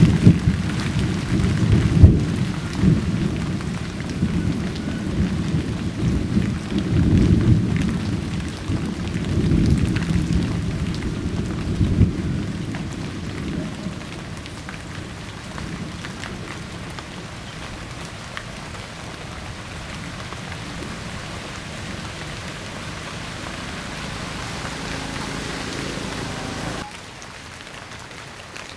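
Steady rain falling, with heavy low rumbling in the first half that dies away about halfway through. The rain drops in level shortly before the end.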